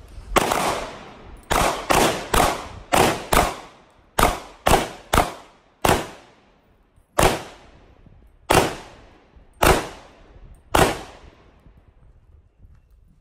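Handgun firing about fourteen single shots, each sharp crack trailing off briefly. The shots come quickly at first, about two a second, then slow to one every second or so, the last coming about eleven seconds in.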